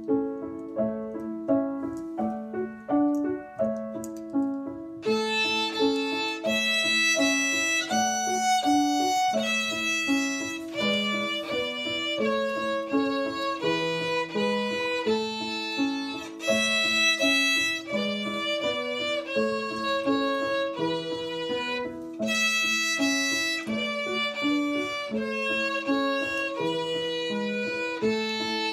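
Violin playing a quick melody of short, separate notes. It is softer and thinner for the first five seconds or so, then fuller and louder.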